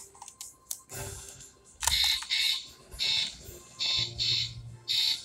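Toy Volvo trash truck's built-in sound module set off by a button on its side: a few clicks of the button, then a run of about six short, hissy electronic bursts from its small speaker.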